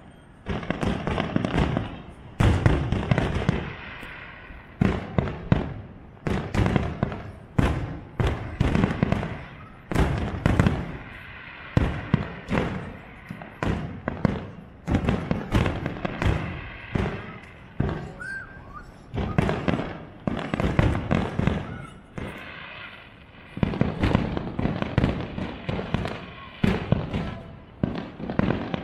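Aerial fireworks shells bursting: many loud bangs in quick, irregular succession, each trailing an echoing tail, with a few brief lulls between volleys.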